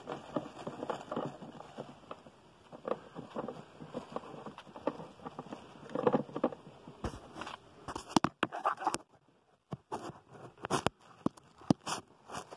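Hand work in a car's cowl area: plastic sheeting rustling and crackling while parts are handled, then several sharp clicks and knocks in the second half.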